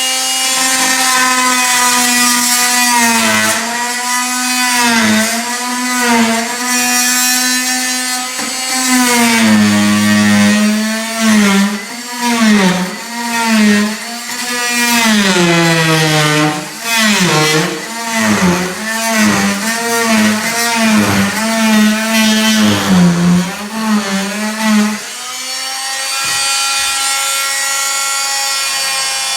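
Electric power tool cutting pine floorboard, its motor whine dipping in pitch and recovering again and again as the cut loads it. It runs at steady full speed near the start and again for the last few seconds.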